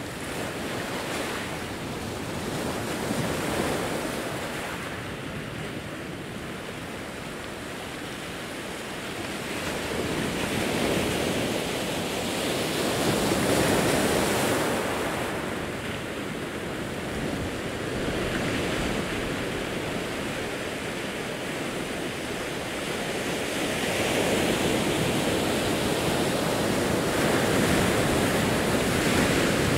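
Ocean waves breaking and washing over a rocky shore. The surf swells and eases every few seconds and is loudest in the last few seconds.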